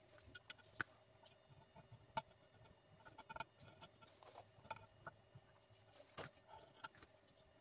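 Near silence with scattered faint clicks and taps, about four sharper ones spread through it, over a faint steady hum.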